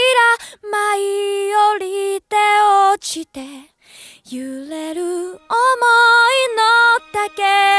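Music: a woman singing a slow song in Japanese, with held notes and a short break near the middle; a steady sustained tone comes in under her voice a little past halfway.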